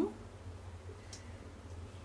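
Quiet kitchen room tone: a low steady hum with one faint tick about a second in.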